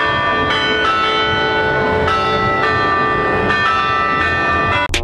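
Bells of the Morehead-Patterson Bell Tower at UNC ringing a tune, a new note struck about every half second, each ringing on under the next.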